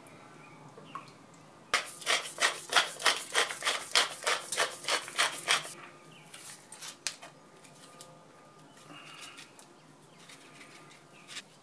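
Spice being ground over a pan of sauce: about sixteen quick rasping strokes, some four a second, starting about two seconds in and lasting about four seconds. A few faint scrapes and ticks follow.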